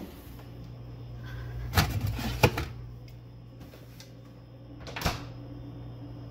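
Refrigerator being used: a few knocks and clatters as things are handled on its shelves, then the door swings shut with a thud about five seconds in. A steady low hum runs underneath.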